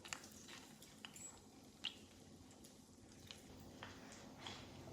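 Chicken tenders frying in hot chicken fat (schmaltz): faint, with scattered small pops and clicks, about six over a few seconds.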